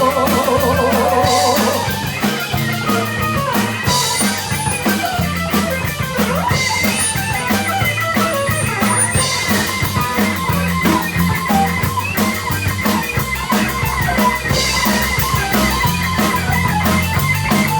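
Live rock band playing an instrumental break of electric guitar, bass and drum kit, with cymbal crashes every few seconds. A held sung note with vibrato fades out in the first moment.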